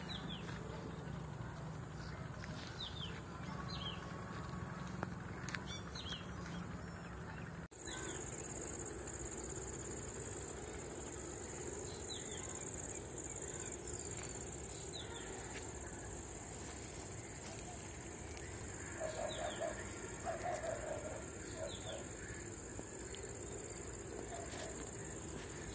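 Rural outdoor ambience: a steady high-pitched insect drone that sets in after an abrupt cut about a third of the way in, with short falling bird chirps scattered throughout and a brief run of lower, rapid calls about three quarters of the way through.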